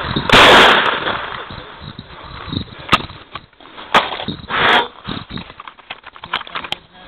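A loud shotgun shot about a third of a second in, following the call for a clay target. After it come scattered clicks and short rustling sounds as the camera brushes through tall grass.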